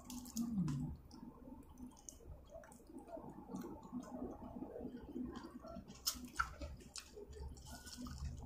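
Close-up eating of a seafood boil by hand: soft wet chewing and squishing with many small scattered clicks, a sharper click about six seconds in. A brief low falling hum comes just after the start.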